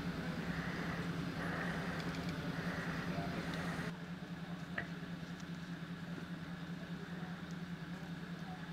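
Steady low hum of an idling engine. About four seconds in it drops a little in level and loses its upper hiss, and a single short click sounds about a second later.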